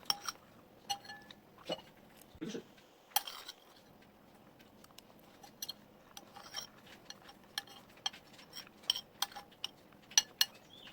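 Metal utensils clinking irregularly against kitchenware: many sharp clinks, each with a short ring.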